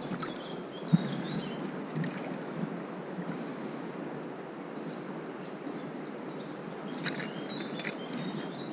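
Steady rushing of a small river's running water, with a small bird chirping briefly near the start and again near the end, and a light tap about a second in.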